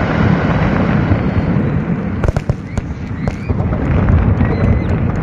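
Fireworks display in full barrage: a dense, continuous rumble of shell bursts with many sharp cracks, a cluster of them a little over two seconds in.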